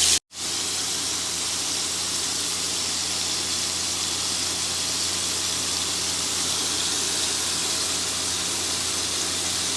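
Food sizzling steadily in a frying pan, an even hiss with a faint low hum beneath it. The sound cuts out for a moment just after the start, then runs on at an unchanging level.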